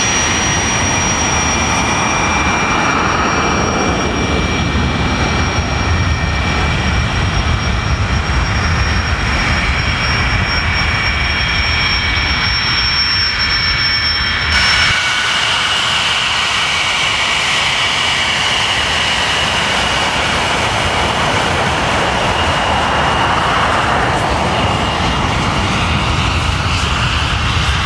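English Electric Lightning's twin Rolls-Royce Avon turbojets running loud and steady, with a high whine over the jet noise. About halfway through the sound changes abruptly, the whine shifting lower.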